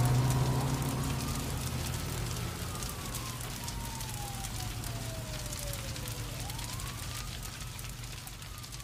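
A siren wailing slowly: its pitch rises, falls over several seconds, then rises and falls again near the end, over a fine crackling like fire. A low held note of the song fades out during the first few seconds.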